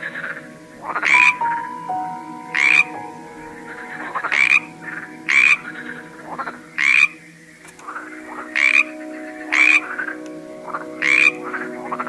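A frog croaking in short calls, one about every second and a half, about eight in all, each a brief rasping burst.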